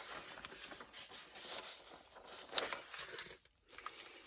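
Sheets of old paper rustling and crackling as they are handled and turned over by hand, with one sharp paper snap a little past halfway.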